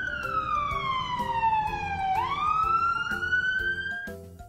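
Emergency-vehicle siren wailing: one slow fall in pitch over about two seconds, then a rise back up, cutting off near the end. Light background music with short notes plays underneath.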